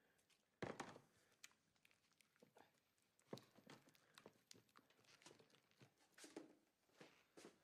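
Faint, irregular knocks, scuffs and rustles of someone moving about a small room, the loudest a thump a little under a second in.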